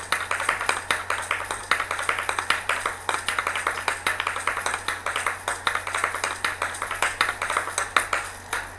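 Asalato (kashaka) being played: the two seed-filled shells rattle and clack together in a fast, steady rhythm of sharp clicks.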